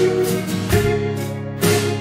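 Music: strummed guitar chords, a new strum about once a second with the chord ringing between.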